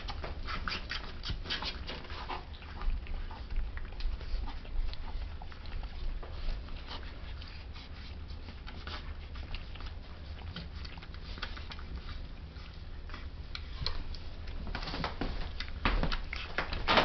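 Border terrier puppies nursing: a run of short, wet suckling clicks and smacks with the odd small whimper, busier near the end.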